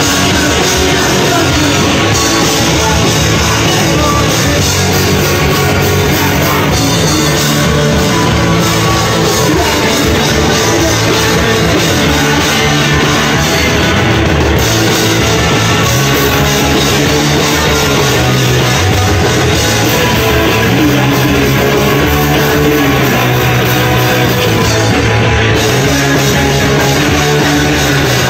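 Rock band playing live and loud: distorted electric guitars, bass and drums, with a singer shouting into the microphone.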